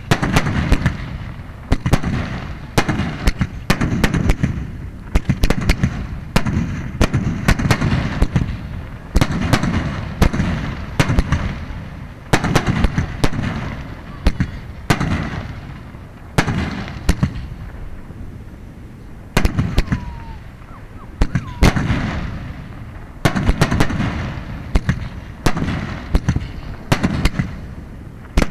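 Aerial firework shells bursting one after another, sharp bangs coming about every second with rumbling echoes trailing between them.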